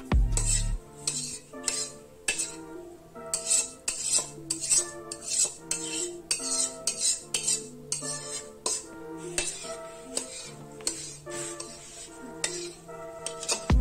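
A metal spoon scrapes and clinks again and again against a metal karai as the chicken curry is scraped out, over background music.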